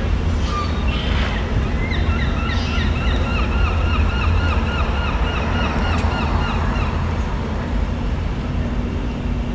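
Wind buffeting the microphone over steady city street traffic, a deep continuous rumble. From about two seconds in, a high repeating squeak sounds about three times a second for around five seconds.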